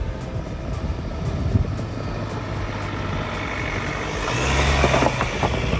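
A 4x4 ute drives along a slatted sand track and passes close by, its engine and tyres growing louder as it nears and loudest about four to five seconds in. A few knocks come near the end as the tyres roll over the timber slats.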